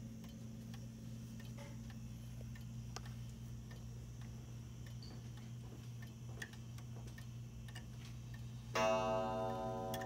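Antique Lenzkirch wall clock ticking while its minute hand is turned by hand, then, near the end, one strike that rings on and slowly fades: the half-hour strike, set off as the minute hand reaches the 6.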